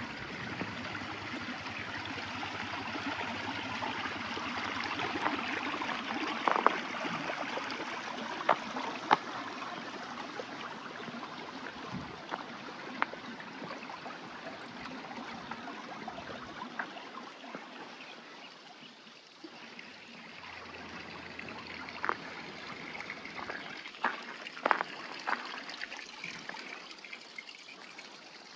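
Water running in a small stream, a steady trickling rush that is louder in the first third and fades for a moment later on, with scattered sharp clicks and knocks.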